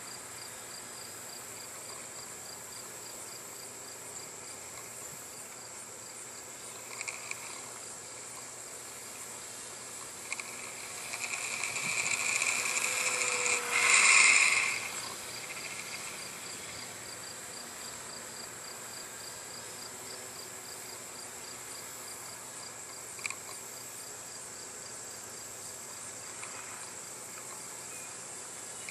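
Steady chorus of crickets trilling, with a few faint ticks. About midway, the electric motor and propeller of a Dynam Tiger Moth RC biplane swell as it passes, rising over a few seconds to a peak, then dropping away quickly.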